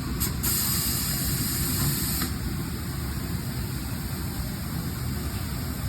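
Compressed air hissing from a shop air line: a short puff, then a hiss of about two seconds that cuts off sharply. A steady low rumble runs underneath.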